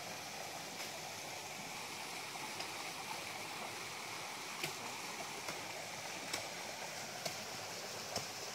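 Shallow stream of water running steadily over a carved stone riverbed and a small rocky cascade, with a few faint clicks scattered through the second half.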